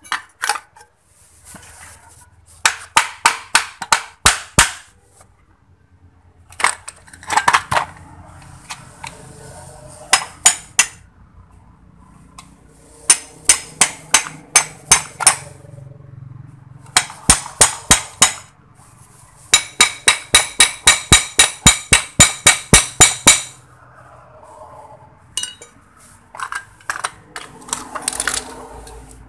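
Hammer blows on an electric motor's shaft and end cover, knocking the motor apart: runs of sharp metal-on-metal strikes, several a second, with pauses between the runs. The fastest run, near the middle, rings.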